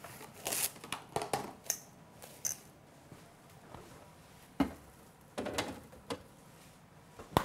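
Plastic cling wrap crinkling and rustling as it is pulled over a bowl, with a few sharp clicks and rattles. Then a dull thump and a few knocks as a refrigerator door is opened, and a sharp click near the end.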